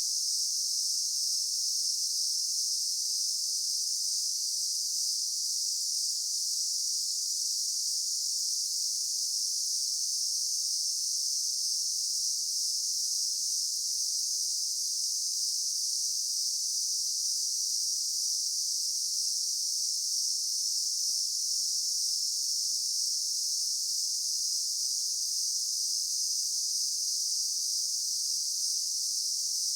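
Daytime insect chorus: a steady, high-pitched insect drone that holds even, with no breaks.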